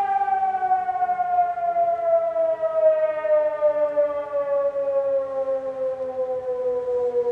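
Electromechanical fire-brigade siren winding down, its howl falling steadily in pitch the whole time, with a fainter lower tone sliding down beneath it. It is sounding the fire-brigade call-out alarm for storm-damage work.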